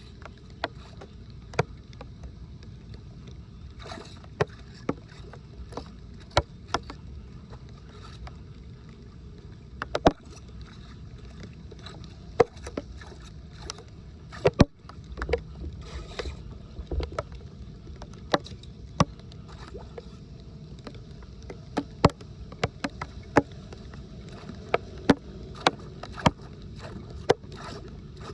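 Steady rush of floodwater with many sharp, irregular knocks and clicks scattered through it.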